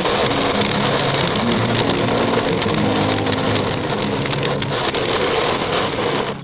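Power King stump grinder with a 14 HP Kohler gas engine running under load, its toothed cutter wheel chewing into an oak stump and roots with a dense rattle of wood chips over the steady engine hum. It cuts off abruptly at the end.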